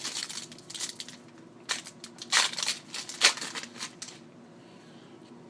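Football trading cards and their pack wrapper being handled: a run of crackling, crinkling rustles that stops about four seconds in.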